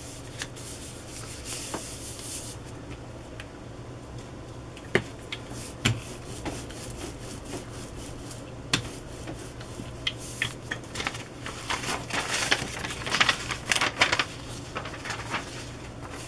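Paper rubbing and rustling as a hand smooths an old recipe card down onto a sheet of paper, with a few sharp taps and clicks. The rubbing is busiest in the second half. A steady low hum runs underneath.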